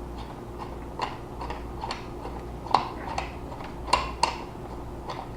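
Mossberg 500 12 gauge shotgun's magazine tube cap being unscrewed by hand to free the barrel: a run of light, irregular clicks and ticks, eight or so, with the sharpest near the middle and about a second later.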